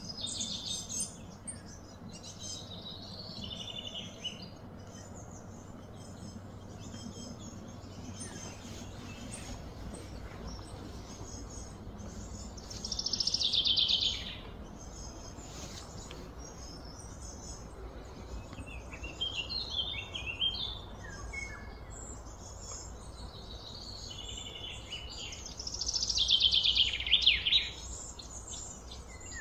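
Birds chirping and calling, with two louder trills that fall in pitch, one about midway and one near the end.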